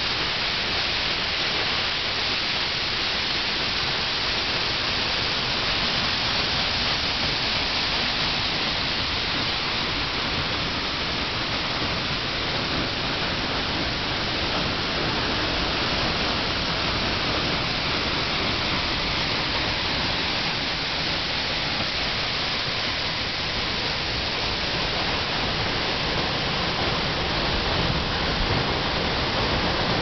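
Steady, even rush of a tall waterfall pouring into its plunge pool. Near the end, wind buffets the microphone with low rumbling bumps.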